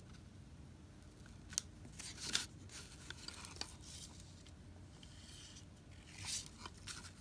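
Faint craft-handling sounds: a few sharp clicks and short papery rustles as pom-poms are pressed onto a glued board laid on newspaper.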